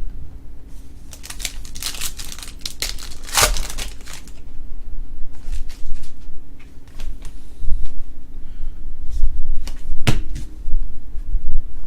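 Trading cards and foil pack wrappers being handled: crinkling and quick clicks and taps, densest between about one and four seconds in, with a sharp knock near the end. A faint steady hum runs underneath.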